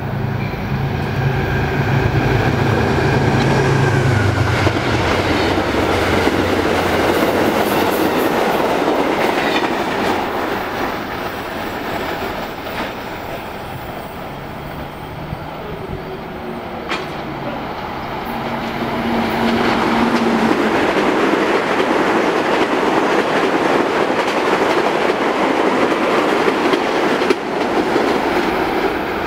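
Two passenger trains passing at speed, one after the other. First comes a GE Genesis P32AC-DM diesel locomotive with Amtrak coaches, its engine running with a deep drone. Later a Metro-North M7A electric multiple unit rushes past, its steel wheels clattering over the rails.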